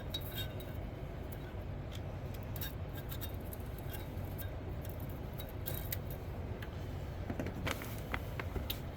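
Light metallic clicks and clinks of small engine parts and tools being handled, scattered and irregular, with a few sharper clicks near the end, over a steady low hum.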